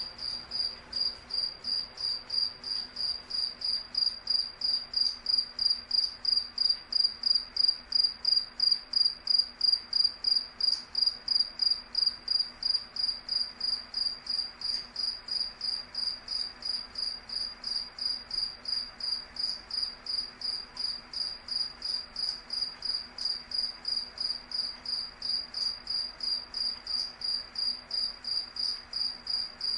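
A cricket chirping in a steady, even rhythm, about three high-pitched chirps a second.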